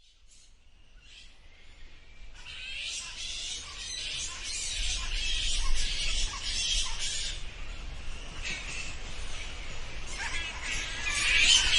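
Bats squeaking: a dense chorus of high-pitched chirps and squeaks that fades in over the first few seconds, thins out for a couple of seconds past the middle, then grows louder again near the end.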